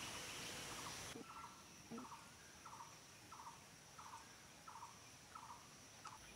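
Faint, short rattling animal call repeated at an even pace, about once every 0.7 seconds, starting about a second in.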